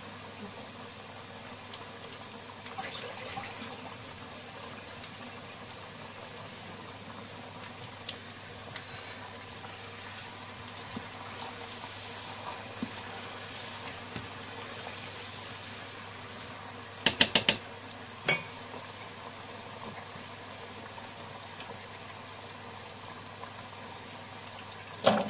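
Potato fries bubbling in a pot of hot frying oil during their first pre-fry, a steady hiss. About 17 s in comes a quick run of sharp knocks, with one more a second later.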